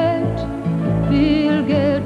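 Music from a 1980s television interval: a melody with vibrato over held low notes.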